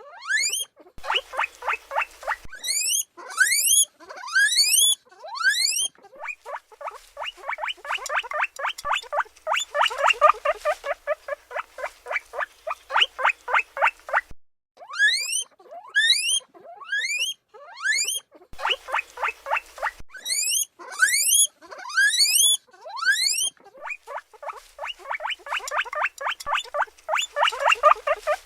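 Guinea pig calls: groups of short whistles that sweep steeply up in pitch, a couple each second, alternating with long runs of fast, short squeaks, several a second.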